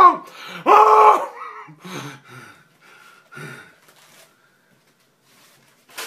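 A man's strained, drawn-out wailing cry tailing off right at the start, and another short one about a second in, followed by a few gasping breaths that die away.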